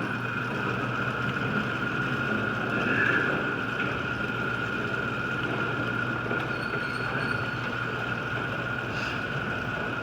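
Allstar garage door opener motor running steadily with a high whine as it raises a Wayne Dalton overhead door.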